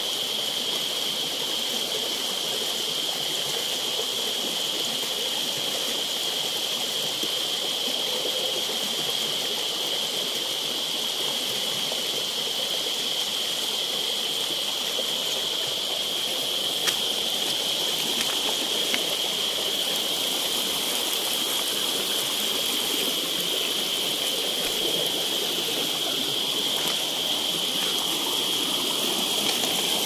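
Small forest stream rushing and splashing over rocks in shallow cascades, a steady rush of water, with a steady high-pitched drone over it.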